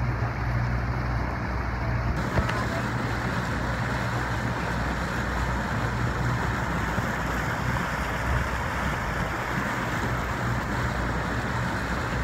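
A boat's motor running steadily under way, with water rushing past the hull and wind on the microphone. About two seconds in, the rushing grows fuller and hissier.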